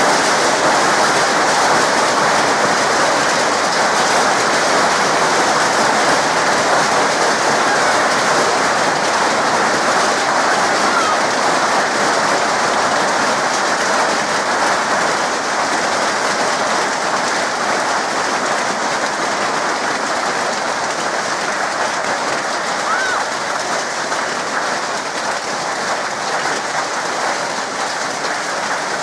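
Heavy hailstorm: a deafening, dense clatter of large hailstones pelting down, easing a little toward the end.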